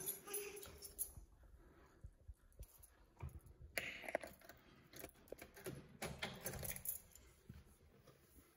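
Faint scattered clicks and rattles, dying away to near silence near the end.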